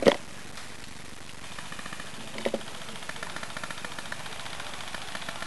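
Airsoft electric gun firing a long full-auto burst: a rapid, even stream of clicking shots as suppressing fire, starting about a second and a half in and running on, after a sharp knock at the very start.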